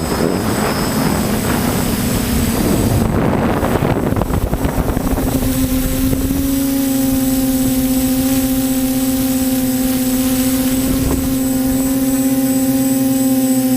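TBS Discovery quadcopter's electric motors and propellers buzzing in flight. The sound is rough and gusty for the first five seconds or so, then settles into a steady hum.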